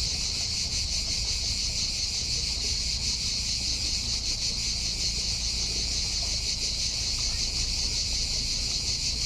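Cicadas singing in a continuous chorus: a steady, high, finely pulsing buzz, with a constant low rumble underneath.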